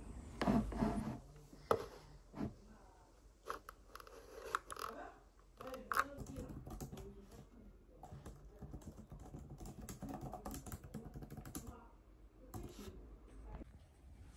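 Irregular light clicks and taps with some scraping, a few sharper knocks in the first half, like small objects being handled.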